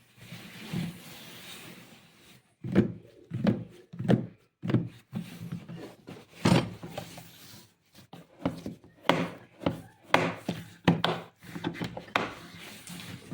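Unpacking and handling a boxed rotary hammer drill: scraping and rubbing at first, then a series of irregular knocks and thuds as the tool, its case and its packaging are moved about. The hammer itself is not running.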